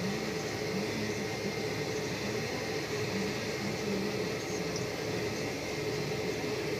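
Tractor engine running steadily under load as it pulls a GPS-controlled land-levelling scraper through loose soil: an even drone with a low hum that wavers in pitch.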